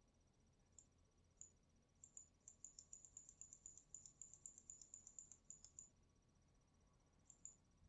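Faint, quick clicking of computer input. A few scattered clicks come first, then a dense run of about five clicks a second from about two to six seconds in, and two more near the end.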